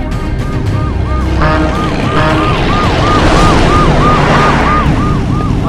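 Emergency-vehicle siren in a fast yelp, its tone rising and falling about three times a second, over a steady low vehicle rumble; a rushing noise swells in the middle.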